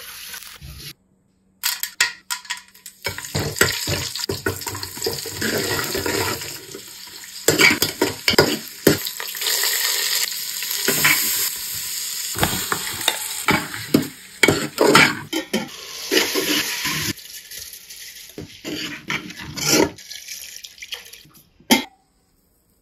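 Kitchen cooking sounds in quick succession: water poured over rice in a steel bowl, then food frying and being stirred in a metal pot, with many sharp knocks and clinks of a spoon and utensils against the metal.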